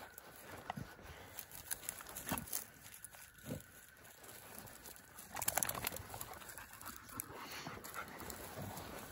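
Two bluetick coonhounds moving through dry grass close by: rustling and panting, with a louder burst of rustling about five and a half seconds in.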